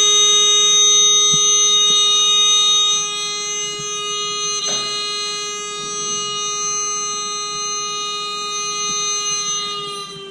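Buzzer of a homemade magnetic reed-switch door alarm sounding one continuous high electronic tone. It gets quieter about three seconds in, with a click about halfway through, then fades out near the end as its pitch sags slightly.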